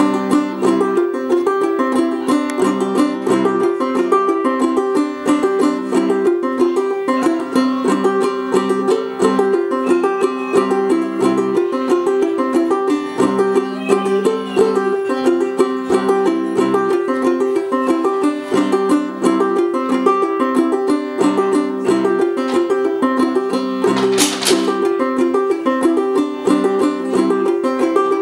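Nate Calkins #75 fretless banjo strung with nylgut strings, played clawhammer (frailing) style: a steady old-time tune of quick plucked melody notes and downward brushed strums.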